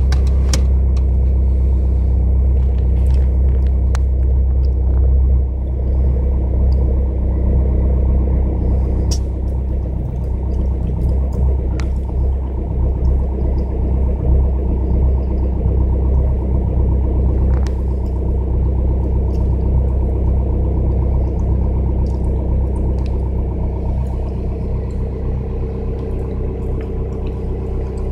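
Skoda Octavia 1.9 TDI four-cylinder turbodiesel idling steadily at about 1000 rpm just after a cold start at −7 °C, heard from inside the cabin: a steady low diesel rumble that slowly gets a little quieter.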